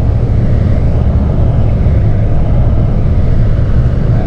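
Intercity coach moving at low speed: a loud, steady low rumble of engine and running noise.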